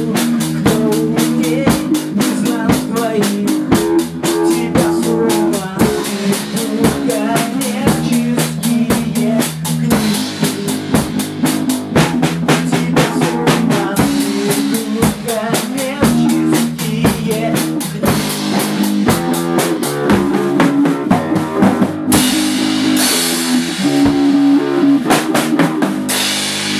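Small rock band playing live: a drum kit keeps a fast, busy beat under bass guitar and guitar chords. About 22 seconds in, the drumming gives way to ringing cymbals over a held chord, closing out the song.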